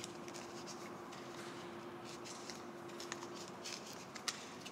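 Faint rubbing and small ticks of PTFE thread-seal tape being wound by hand onto the thread of a brass fitting, over a faint steady hum.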